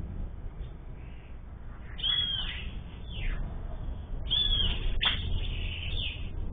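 Sayaca tanager calling: short, high squeaky notes, some arched and some sliding down, in two bursts starting about two seconds in and again past four seconds. A steady low rumble runs underneath.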